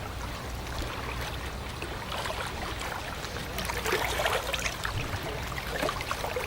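Small waves lapping and splashing at the water's edge, a steady low rustle with a few slightly louder splashes in the second half.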